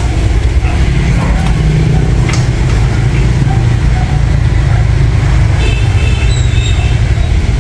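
Two-stroke chainsaw engine running steadily as a branch is cut up in the tree.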